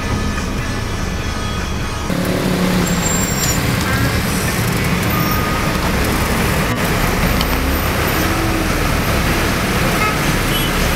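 Dense city traffic on a wet street: a steady wash of engine and tyre noise that comes in suddenly about two seconds in, with a few brief high squeaks over it.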